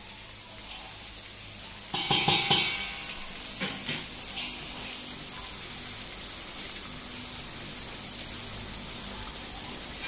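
Stuffed milkfish frying in hot oil in an aluminium pan, a steady sizzle. A brief louder sound about two seconds in, and a smaller one about a second and a half later.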